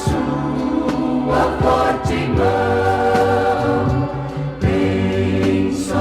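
A choir singing a Christian hymn with instrumental accompaniment, from a 1976 vinyl recording.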